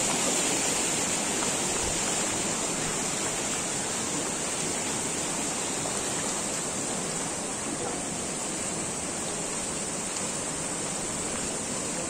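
Fast-flowing stream rushing steadily over rocks, growing slightly fainter.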